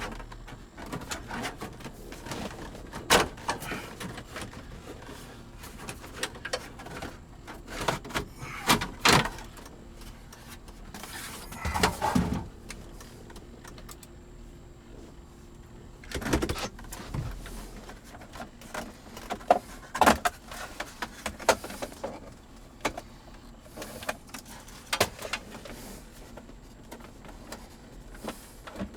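Hard plastic interior trim of a 2005 Cadillac Escalade being handled and forced into place: irregular clicks and knocks, with a few longer scrapes of plastic rubbing on plastic.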